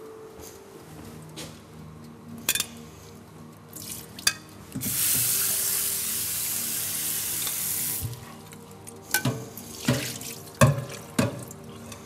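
Kitchen tap running into a glass bowl of zucchini at a steel sink for about three seconds. Several sharp knocks and clinks follow near the end.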